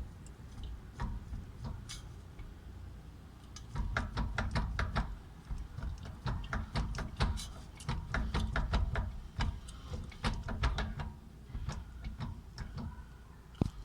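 1993 BMW 325i's straight-six running with a steady low hum and an irregular rattle of sharp clicks, sparse at first and coming in dense clusters from about four seconds in. The rattle occurs in neutral and in gear, clutch in or out; with the guibo and centre support bearing already replaced, the owner suspects the driveshaft, its U-joints or the differential.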